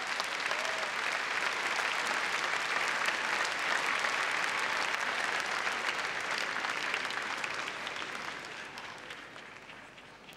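Audience applauding, a steady crackle of many hands clapping that builds over the first few seconds and dies away near the end.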